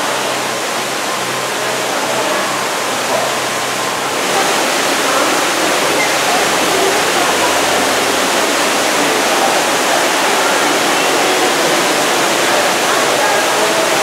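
A tall underground cave waterfall: water falling steadily in a continuous rush that grows louder about four seconds in.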